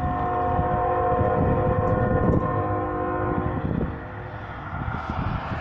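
Five-chime locomotive air horn of a Norfolk Southern oil train sounding one long, steady chord, cutting off a little over three and a half seconds in, over a low rumble.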